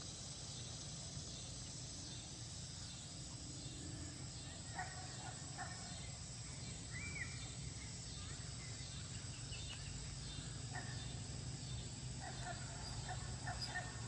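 Rural outdoor ambience: a steady insect drone with a low steady rumble underneath, and a few short bird calls scattered through it.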